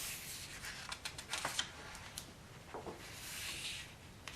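Soft paper rustling and faint clicks as a page of a picture book is handled and turned, with a longer rustle near the end.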